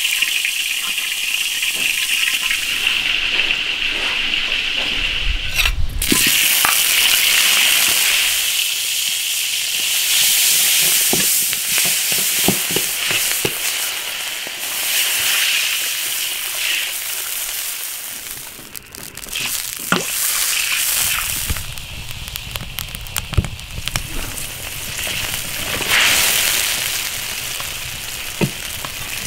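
Hot oil sizzling and crackling in a wok as crucian carp fry, then a chili sauce with carrots sizzling in the wok, with scattered sharp pops throughout.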